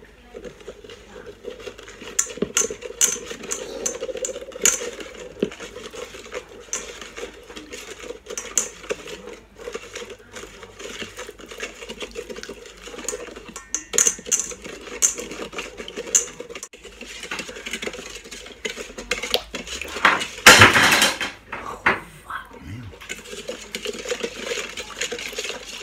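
A metal spoon stirring a thin liquid sauce in a stainless steel mixing bowl, clinking and scraping irregularly against the bowl, with one louder clatter about twenty seconds in.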